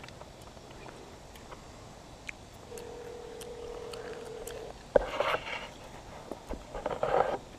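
Phone ringback tone played on speakerphone: one steady two-second ring about three seconds in, the call still unanswered. About five seconds in there is a sharp knock and scrape as the phone is set down on the concrete ledge, with more scuffing near the end.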